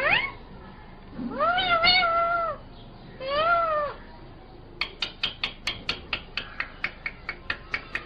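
Indian ringneck parakeet giving pitched calls that rise and fall, a short one at the start, a long drawn-out one and a shorter one, followed over the last three seconds by a fast run of sharp clicks, about five a second.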